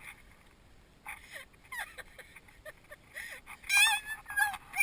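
A woman's voice squealing at a very high pitch, two loud squeals near the end, after a few faint short vocal sounds.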